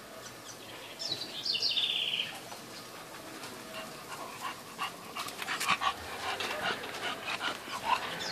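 English bulldog giving one short, high-pitched whine about a second in, followed by a scatter of short clicks.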